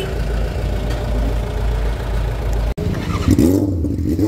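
Motor vehicle engine running, the sound dropping out abruptly for an instant about two-thirds of the way through, then going on with rising and falling pitch.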